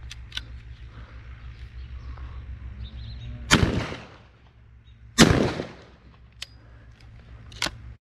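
Two shotgun shots fired about a second and a half apart, each a sharp blast with a short echoing tail.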